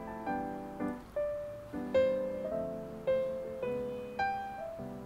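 Background piano music: a slow melody of single notes and soft chords, each note struck and then fading.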